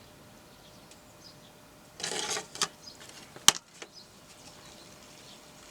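Handling noise from a steelbook disc case: a short scrape about two seconds in, a light click, then one sharp click about a second later.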